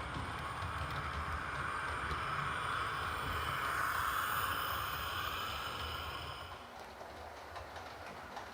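OO gauge model train running along the track with a low rumble and hiss, growing louder to about four seconds in and then fading away after about six and a half seconds as it passes.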